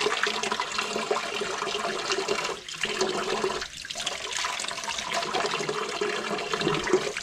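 Kitchen tap running, the stream splashing over hard-boiled eggs held under it by hand and into a wok of water in the sink below.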